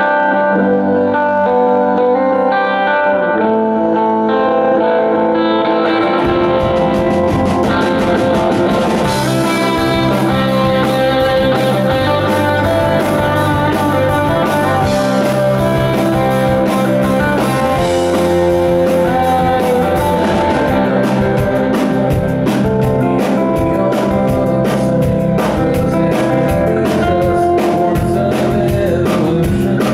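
Live rock band: electric guitar plays alone at first, then bass and drums come in about six seconds in, and the full band carries on with a steady drum beat.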